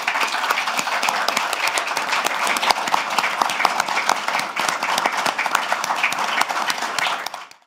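Audience applause: many people clapping steadily, fading out near the end.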